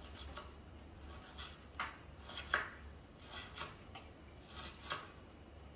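Kitchen knife chopping a red onion on a plastic chopping board: quiet, uneven strokes, about two a second.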